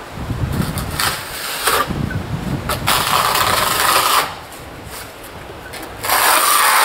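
Trowel scraping adhesive plaster across a wall in strokes: a short one about a second in, a longer one around three seconds in, and another starting about six seconds in.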